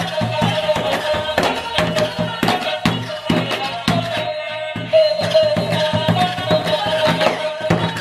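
Battery-powered orangutan toy playing its built-in electronic tune: a melody over a steady beat.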